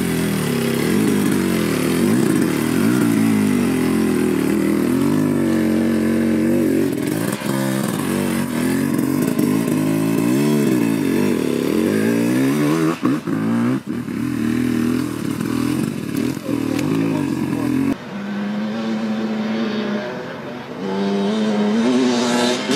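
Dirt bike engine revving up and dropping off again and again under load on a steep, rough climb, with a few brief cuts in power. Near the end another motorcycle engine takes over abruptly, running steadier and rising in pitch in steps.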